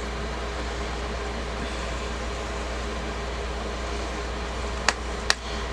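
Steady background hiss over a low hum, with two light, sharp clicks about five seconds in, half a second apart, from a small screwdriver working a screw in the laptop's plastic base.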